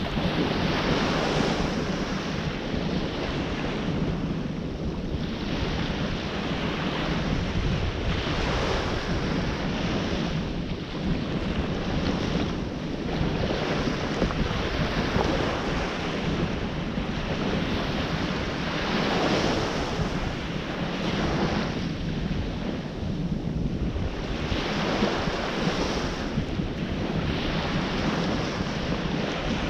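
Ocean surf washing in and out, the noise swelling and ebbing every few seconds, with wind buffeting the microphone.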